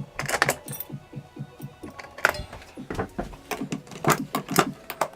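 Irregular metallic clinks and rattles of hands and tools working on refrigerator parts, over background music.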